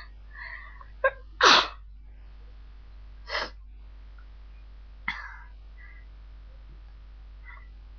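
A person sneezing several times in short, sharp bursts, the loudest about a second and a half in, with softer breaths between them.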